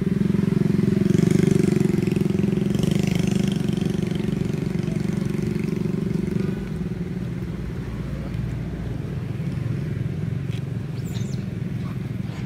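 An engine running steadily with a low, even hum, dropping a little in level about six seconds in.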